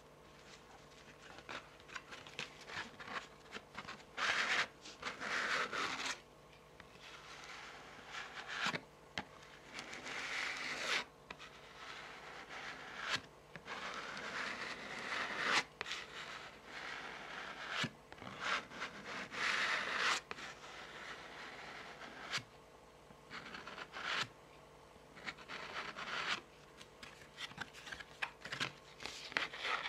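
Tarot cards handled close to the microphone: cards slid and drawn off the deck and their faces and edges rubbed and scratched by long fingernails. Scraping swishes every few seconds, with light clicks and taps between them.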